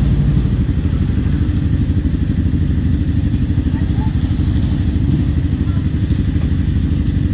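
Benelli Motobi 200 Evo's single-cylinder engine idling steadily, a fast, even low pulsing.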